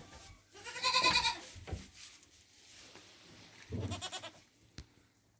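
Goat kids bleating twice: a loud, wavering bleat about a second in, then a second, quieter bleat a few seconds later. A short click follows near the end.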